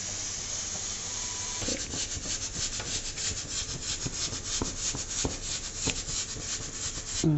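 Cooking oil poured into a hot kadai on a gas stove: a steady hiss, then from about two seconds in a fast, irregular crackling.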